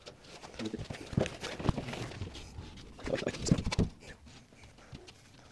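Plasterboard sheets being handled against timber stud framing: irregular knocks, thuds and scrapes, busiest about three seconds in.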